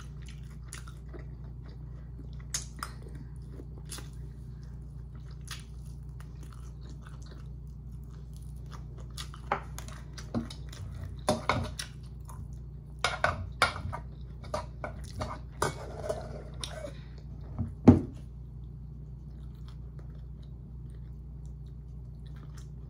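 Someone eating noodles with a spoon from a stainless steel pot: scattered chewing and mouth clicks, thickest through the middle. The loudest sound is a single sharp knock about three-quarters of the way through, and a steady low hum runs underneath.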